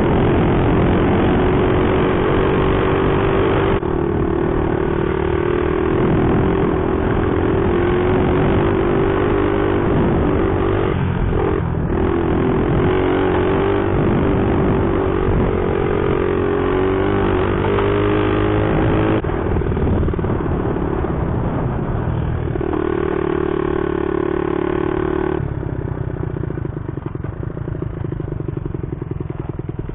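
Small single-cylinder four-stroke Honda mini bike engine running under way, its note shifting with throttle and gears. The note breaks off briefly about eleven seconds in and turns quieter near the end.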